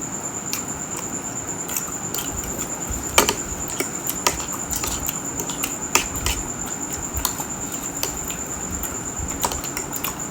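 Close-up eating sounds: irregular clicks and smacks of chewing and utensils, with one sharper click about three seconds in. A steady high-pitched whine runs underneath.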